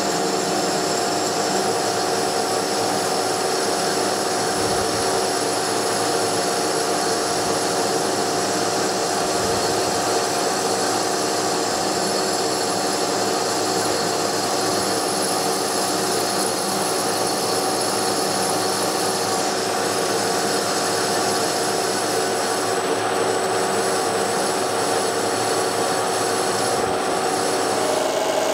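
1K62 metal lathe running while a cutter grooves into the face of a spinning metal disc blank to part a ring out of it: a steady machining noise with several steady tones underneath.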